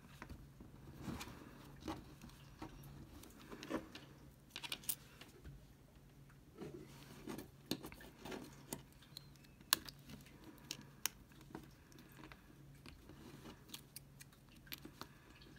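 Plastic guitar pick prying at the seam of a fourth-generation iPod's case: scattered faint clicks and scrapes, over a faint steady hum.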